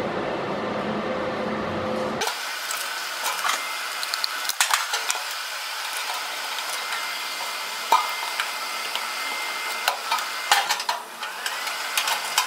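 Sheet metal being handled and fitted by hand into a car's floor, with scattered light metallic clicks, taps and scrapes over a thin hiss. The first two seconds are a low rumble that cuts off suddenly.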